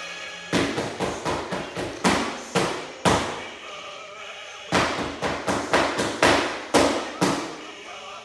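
Kitchen spatulas drummed in two quick runs of sharp slaps, about a dozen strikes each, with a pause of about a second and a half between them. Faint music plays underneath.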